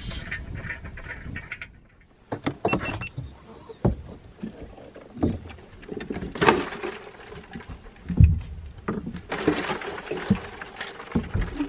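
Handling noises: metal clicks as a propane canister is twisted onto a small camp stove, then a series of sharp knocks and spells of water swishing as fish is rinsed in a plastic cooler.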